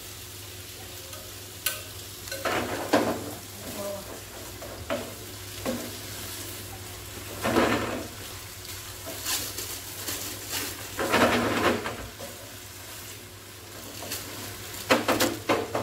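Spaghetti frying in oil in a frying pan, sizzling steadily, while a wooden spatula stirs and scrapes through it in several short, scratchy bursts.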